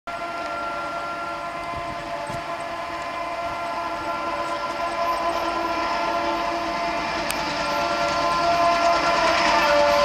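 WDM3A diesel locomotive's horn blowing continuously on its low tone, a steady held chord that grows gradually louder as the train approaches.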